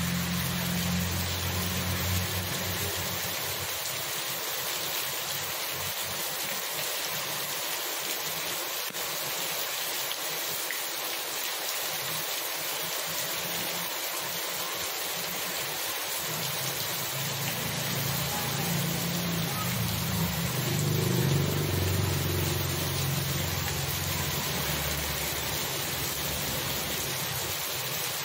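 Heavy rain pouring onto a wet paved street, a steady hiss. A car's low rumble fades away in the first couple of seconds, and another low vehicle rumble swells and fades about two-thirds of the way in.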